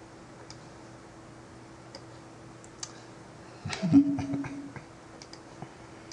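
Computer mouse clicks over a faint steady hum, with a short, louder sound about four seconds in, at the moment Chrome's speech-input microphone button is pressed and starts listening.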